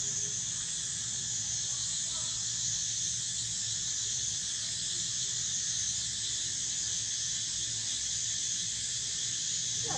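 Steady, high-pitched chorus of forest insects, with a few faint squeaks from young macaques near the start and about two seconds in.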